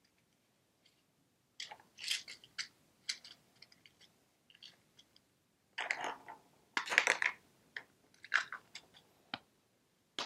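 Candy packets and plastic eggs being handled: irregular bursts of crinkling and rustling, with a few sharp clicks near the end.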